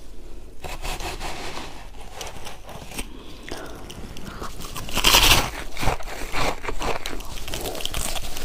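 Shaved ice being bitten and chewed close to the microphone: a run of crisp, crackling crunches, loudest and densest about five seconds in.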